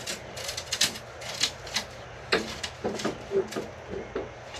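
Metal trellis bars and fittings clicking and clacking as they are handled and fitted together: an irregular run of sharp knocks, about a dozen in all.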